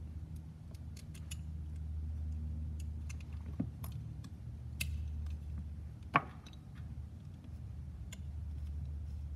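Light clicks and taps of carbon-fibre drone frame plates and small screws being handled and fitted together, with a sharper knock about six seconds in, over a steady low hum.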